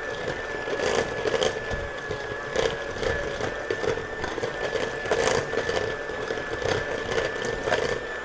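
Electric hand mixer running steadily with a constant whine, its beaters creaming softened butter in a stainless steel bowl. Frequent irregular clicks come from the beaters knocking against the metal bowl.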